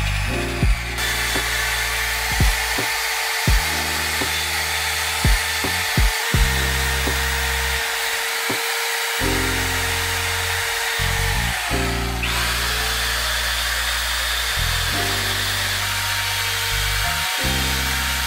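Electric drill spinning a wire cup brush against a metal bike tube, a steady grinding hiss with a motor whine as it scrubs old paint and decals off to bare metal. Lofi background music with a steady beat plays throughout.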